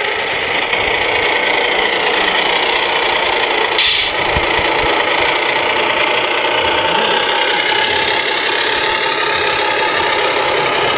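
Radio-controlled scale MAN TGA heavy-haul truck model driving, a steady engine-like running noise with a rattle and slow rises and falls in pitch.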